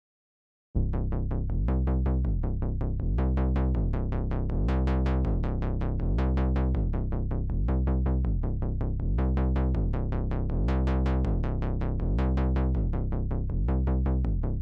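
Electronic background music with a drum-machine beat and deep bass, starting abruptly about a second in.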